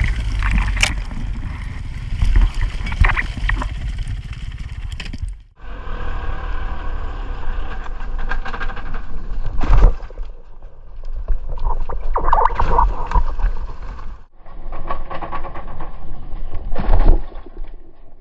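A 2014 Sherco 300 SE-R two-stroke dirt bike crashing off a trail edge and sliding down a steep, rocky, brushy hillside: engine noise mixed with scraping and grinding through dirt and branches. Several sharp knocks sound as the bike and rider hit the ground.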